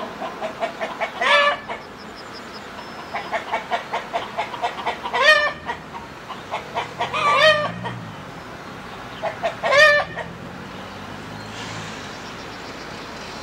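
Domestic hen cackling: runs of quick clucks, each ending in a loud drawn-out squawk, four times. A faint low drone of the approaching narrow-gauge diesel locomotive's engine sits underneath in the second half, growing near the end.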